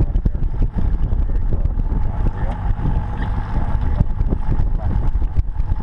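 Wind buffeting the microphone of a boat-mounted action camera: a loud, steady low rumble broken by many short crackles.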